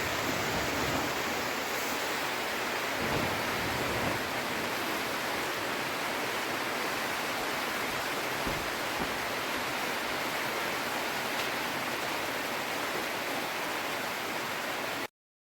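Steady rain, an even hiss without rhythm that cuts off suddenly near the end.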